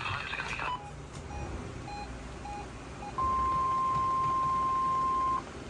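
Weather-radio broadcast audio cuts off under a second in, followed by a run of about five short beeps, roughly two a second, and then a single steady, louder tone held for about two seconds: the NOAA Weather Radio warning alarm tone.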